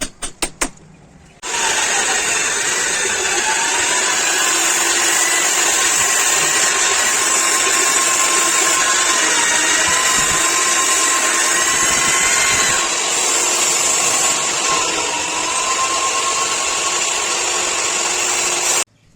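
A few quick clicks, then an electric power tool starts and runs steadily with a whine that dips and rises a little in pitch, cutting off suddenly near the end.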